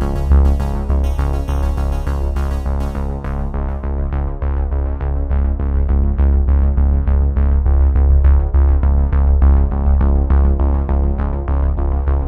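Electronic background music: synthesizer chords over a heavy bass with a steady beat; the bright top end falls away a few seconds in.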